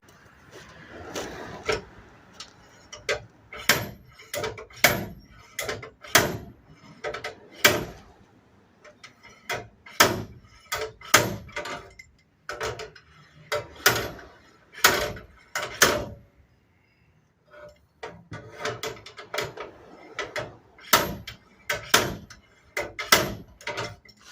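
Irregular clicks, knocks and rattles of hands and tools working a plastic van bumper cover loose, with a short lull about two-thirds of the way through.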